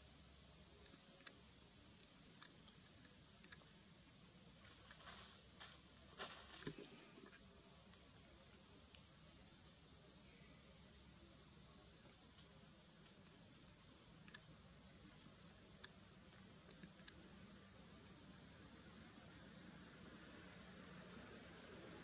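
A steady, high-pitched insect chorus that runs without a break, with a few faint clicks about five to seven seconds in.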